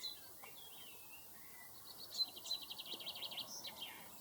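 A wren singing: a fast trill of high repeated notes lasting about two seconds from near the middle, with a few scattered chirps from other songbirds before it.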